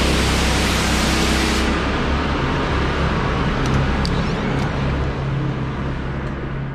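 Steady rushing noise with a low hum, from an empty indoor waterpark's running water and ventilation. The hiss eases a little about a second and a half in.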